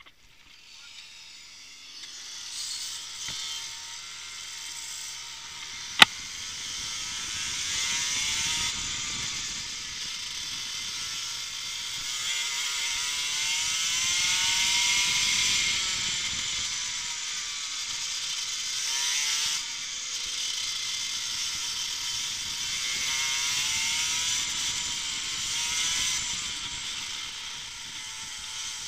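Racing kart engine heard onboard, coming in about two seconds in and then pulling away round the track, its pitch rising and falling as the driver accelerates and lifts. A single sharp knock about six seconds in.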